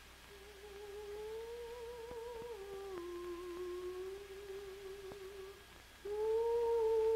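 A voice humming a slow, wordless tune in long held notes that rise and dip. It fades out about five and a half seconds in, and a louder held note starts about a second later.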